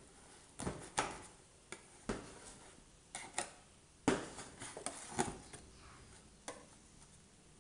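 Knife cutting a piece of cake in a disposable aluminium foil tray, with the blade and fingers knocking and scraping against the thin foil: a run of irregular sharp clicks and crinkles, the loudest about four seconds in.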